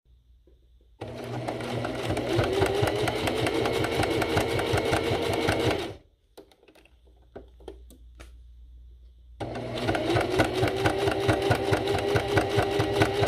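Singer Heavy Duty 4423 sewing machine stitching in two runs of about five seconds each, the motor speeding up as each run starts. A pause of about three seconds between the runs holds a few small clicks.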